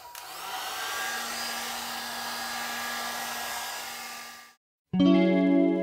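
Two-in-one hot-air brush hair dryer starting up, its motor hum rising in pitch over about a second, then blowing steadily with a hiss of air until it cuts off suddenly. Guitar music starts near the end.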